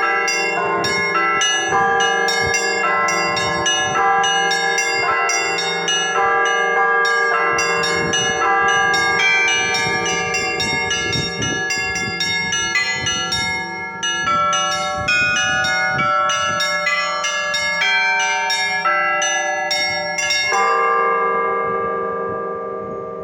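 Russian Orthodox church bell ringing (zvon): several bells of different pitch struck in a rapid, dense pattern over the lasting hum of deeper bells. About 21 seconds in the strikes stop and the last chord rings on and fades.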